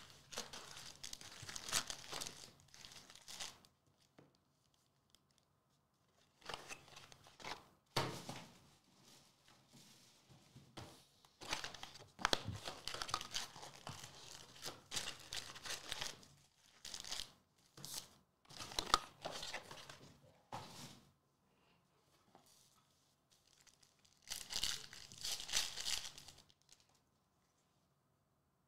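Trading-card packaging being torn open and crinkled by hand: the hobby box and its foil pack wrappers, in several crackling bursts with short pauses between them.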